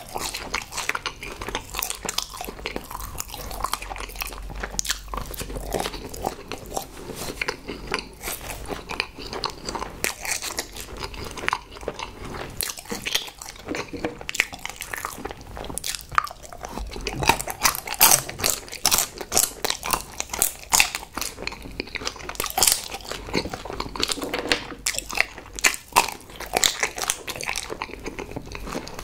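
Close-miked chewing and biting of a chocolate-coated marshmallow, then a chocolate-coated ice cream bite, with many short sharp crackles through the chewing.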